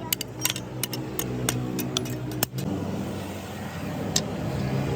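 Light metallic clinks and taps over a motor's steady hum. About two and a half seconds in, the clinks stop and a louder, rougher motor hum takes over.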